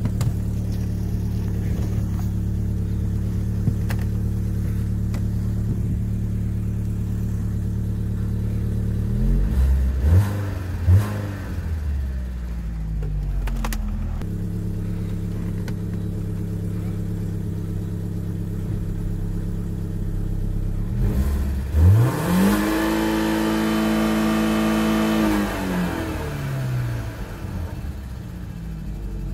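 BMW E46 318i's four-cylinder petrol engine idling, heard from inside the cabin. It gets two short throttle blips about ten seconds in, then a longer rev a little past twenty seconds that rises, holds for about three seconds and falls back to idle.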